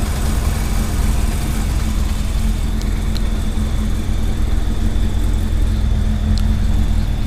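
2000 Honda CB400SF inline-four motorcycle engine idling steadily, with a few faint ticks.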